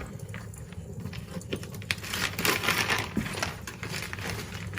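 Gift-wrapping paper crinkling and tearing as a wrapped box is unwrapped, in irregular rustles and small rips that get busier about halfway through.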